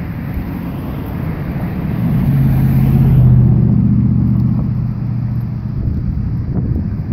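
A motor vehicle driving past on the street, its engine hum swelling to a peak about three seconds in and then fading.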